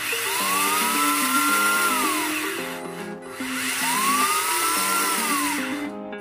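Upgraded strong-magnet 370 brushed DC motor in an RC crawler, spinning the wheels in the air. It is throttled up and back down twice, a whine that rises, holds and falls each time, running very fast. Background music plays underneath.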